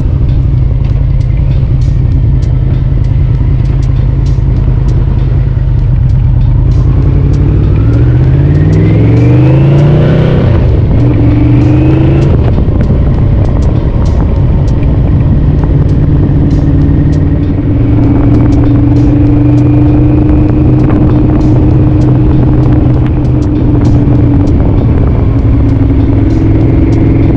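Yamaha VMAX 1200's V4 engine at a steady cruise, then pulling hard with its pitch rising about a quarter of the way in. A brief break follows, like a gear change, then a second short rise before it settles back to a steady cruise.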